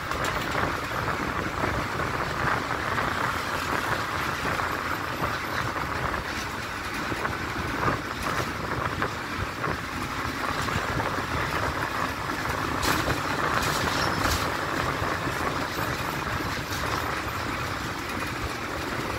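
Steady running noise of a road vehicle on the move: engine, tyres and wind rushing past in an even, unbroken sound.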